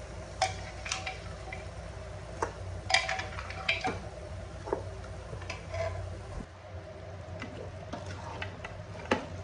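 Spatula knocking and scraping in a nonstick pot as pieces of goat trotters are stirred into frying masala: scattered short knocks over a low steady hum that drops away about six seconds in.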